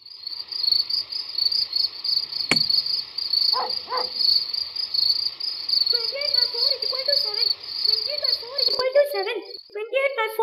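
Crickets chirping steadily in a fast, even trill; they cut off suddenly near the end. From about six seconds in a voice mumbles under them, turning into a quick, jabbering voice after the crickets stop.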